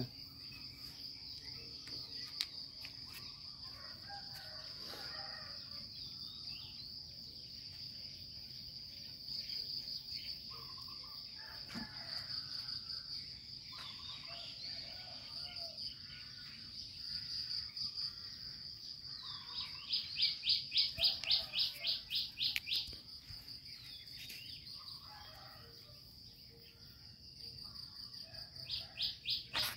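Steady high-pitched drone of crickets or other insects, with bursts of rapid bird chirping, about two-thirds of the way through and again near the end.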